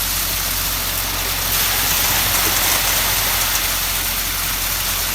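A steady engine hum under a constant hiss, unchanging throughout.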